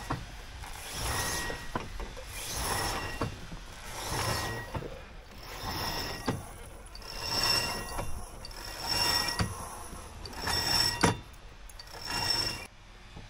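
Line running through the pulley blocks of a junk sail's halyard as it is hauled hand over hand, squeaking in a swell about every second and a half.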